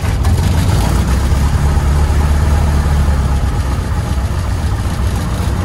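A Piper light aircraft's piston engine and propeller, just started and running steadily at low power, heard from inside the cockpit.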